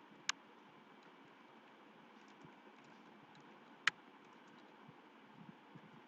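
Two sharp clicks at a computer, about three and a half seconds apart, with a few faint ticks and a low steady hiss between them.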